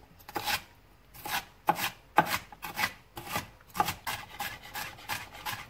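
Chef's knife slicing a red bell pepper into strips on a plastic cutting board: a run of quick cuts, two or three a second.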